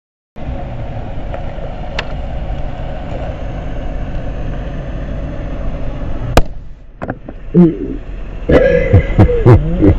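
Yamaha MT-07's parallel-twin engine idling steadily. About six and a half seconds in, a single sharp pop sounds as the handlebar-mounted USB charger bursts, and a man's voice exclaims just after. The audio is played back slowed down, so the voice comes out low and drawn out.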